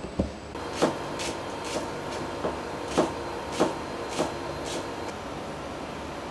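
Kitchen knife chopping onion on a plastic cutting board: single sharp knocks about every half second, stopping about five seconds in, over a steady kitchen hum.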